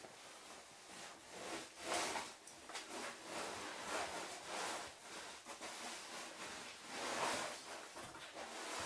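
Rustling and scraping of clothing and gear against rock as a caver climbs down a narrow vertical shaft, swelling louder a few times, most sharply about two seconds in and again near the end.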